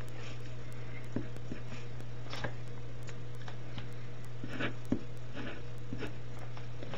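Pen tip scratching on paper in a few short, scattered strokes as numbers are written, over a steady low electrical hum.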